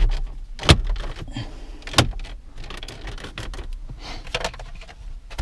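Hard plastic clicks and knocks as hands press the dash trim bezel of a 2008 Hyundai Elantra into its clips. The sharpest snap comes under a second in and another at about two seconds, with lighter handling rattles between.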